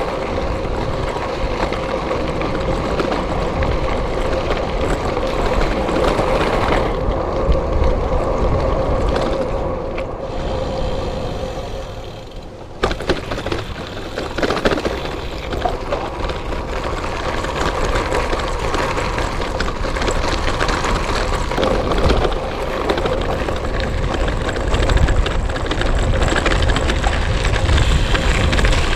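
Gravel bike riding over a rough off-road track: continuous tyre rumble and rattle with heavy low rumble on the microphone. The sound eases off about twelve seconds in, then picks up again with a sharp knock.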